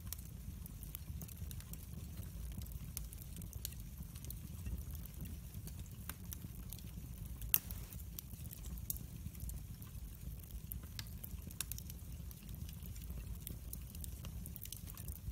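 Split wood logs burning in a fireplace, crackling with scattered sharp pops and snaps, the loudest about halfway through, over a low steady rumble.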